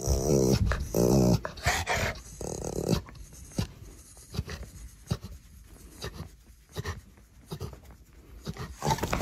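A dog vocalising in low, pitched grumbles over about the first second and a half, then only scattered short, faint sounds until a louder burst of sound just before the end.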